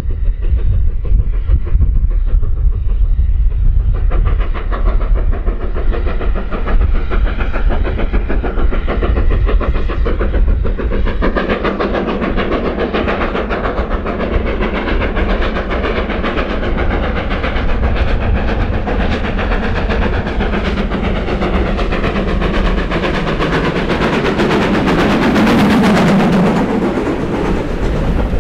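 Steam train approaching and running past, growing gradually louder to its closest point near the end, with its wheels clattering over the rail joints.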